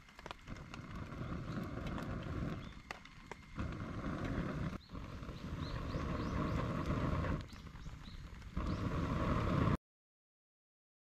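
A campfire burning in the rain: irregular crackles and hissing over a steady patter, then it cuts off suddenly about ten seconds in.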